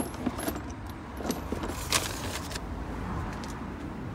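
Scattered small clicks, knocks and light metallic clinks of items being handled and moved about while searching. The sharpest click comes about two seconds in.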